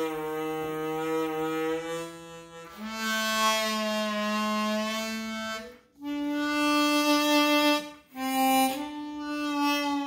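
Customized, air-tightened Suzuki Sirius bass chromatic harmonica played in slow, long held low notes of a few seconds each, stepping upward in pitch, with short breath breaks about six and eight seconds in.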